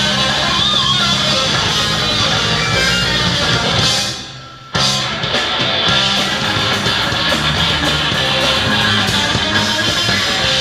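Rock music with guitar. About four seconds in it falls away for under a second, then cuts back in abruptly at full level.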